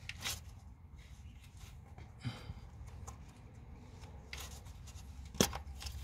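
Hands working at a plastic electrical connector and corrugated wiring loom in a car's engine bay: quiet rustling and rubbing with a few small plastic clicks, the sharpest about five and a half seconds in.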